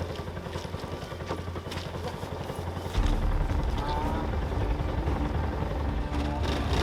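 Motorcycle tricycle's engine running with a fast low putter, getting louder and harder about three seconds in as it is revved or put under load.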